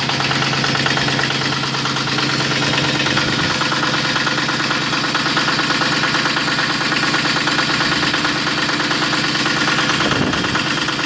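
Honda E4000 V-twin diesel generator running steadily with a rapid, even knocking beat. A steady low hum under the engine stops about three and a half seconds in.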